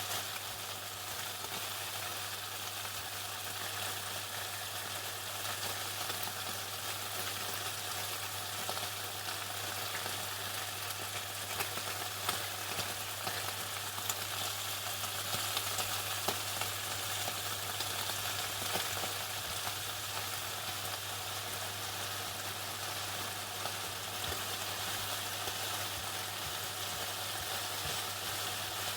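Chicken deep-frying in hot oil: a steady, even sizzle with scattered small crackles, over a low steady hum.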